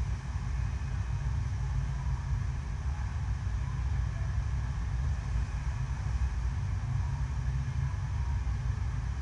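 Deep, steady rush of water pumped across the surface of an indoor artificial sheet-wave surf ride.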